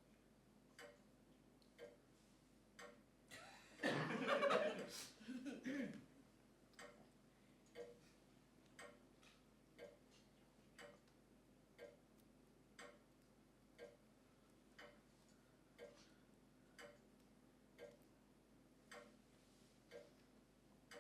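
A clock ticking faintly and evenly, about once a second. A louder, brief sound breaks in about four seconds in and lasts around two seconds.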